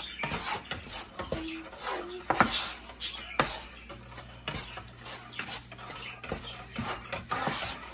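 Wooden spoon stirring and scraping a crumbly butter-and-flour mixture around a nonstick frying pan, with irregular scrapes and knocks against the pan as the flour parches (toasts) in the butter.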